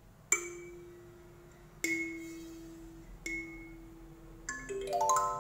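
Kalimba tines being plucked: three single notes about a second and a half apart, each left to ring and fade, then a quick run of notes climbing up the scale near the end.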